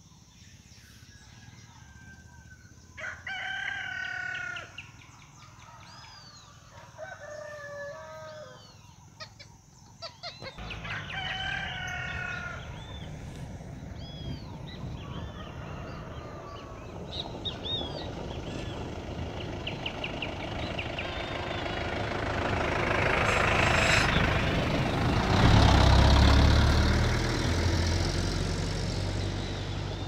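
A rooster crowing three times, about four seconds apart, in the first half, with small birds chirping. From about a third of the way in, a rushing noise with a low rumble swells, loudest near the end.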